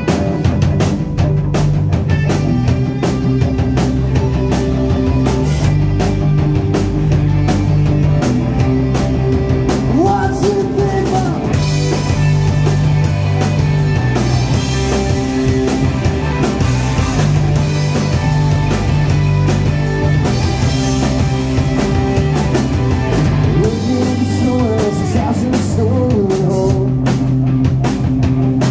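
Rock band playing live: drum kit, guitar and bass, with a voice singing at times. The full band comes in abruptly at the very start.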